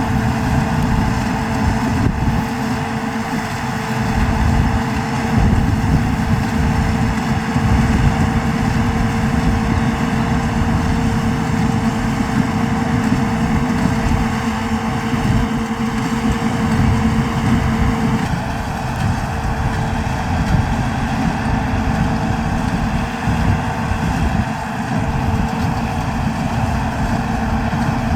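Tractor diesel engine running steadily under load, with a slight shift in its tone about 18 seconds in.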